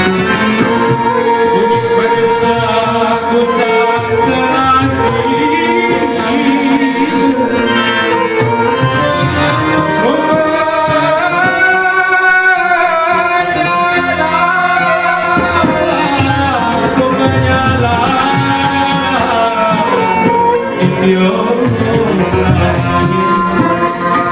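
Johor Malay ghazal music: a melodic line that bends and glides in pitch over a steady accompaniment.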